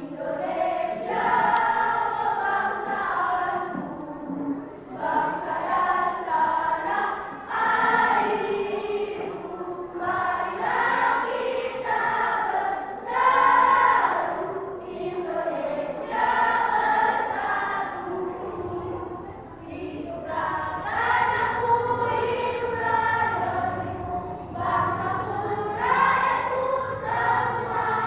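Primary-school children's choir singing, phrase after phrase with short breaks between them.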